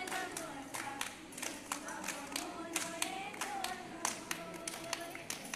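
A group of girls clapping a steady beat together, about three claps a second, while singing a tune in unison.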